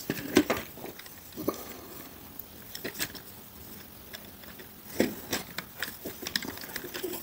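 Plastic parts of a knock-off Studio Series Ratchet Transformers figure clicking and tapping together as it is handled and transformed: scattered, irregular light clicks and knocks.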